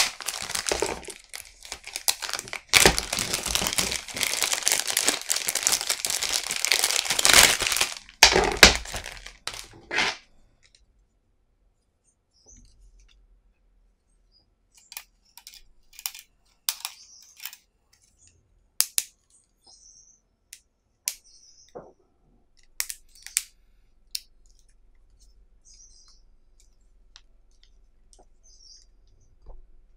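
Thin clear plastic bag crinkling and rustling as it is pulled open and a flexible snake bit extender is taken out, continuous for about the first ten seconds. After that, scattered light clicks and taps as the extender's plastic segmented shaft and bit holder are handled.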